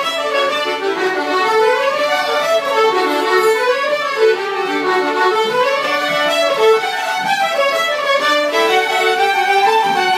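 Fiddle playing an Irish traditional tune in a session, a fast-moving melody whose notes step and turn several times a second.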